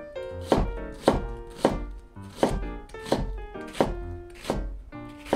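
Kitchen knife slicing an onion thinly on a plastic cutting board: about eight even, sharp strokes, roughly one every two-thirds of a second.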